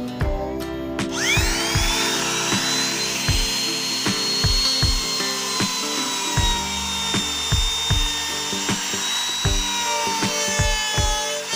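Electric wood trimmer (trim router) starting about a second in with a whine that rises quickly to full speed, then running at a high steady whine as it cuts into the wood, its pitch dipping a little. Background music with a steady beat plays throughout.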